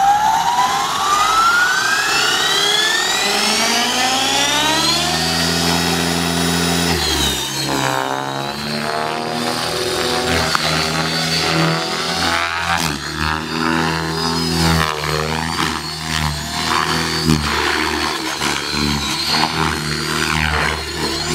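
Align T-Rex 600E electric RC helicopter spooling up: its motor and rotor whine rises steadily in pitch for about seven seconds. It then flies, the whine and rotor noise rising and falling with the manoeuvres.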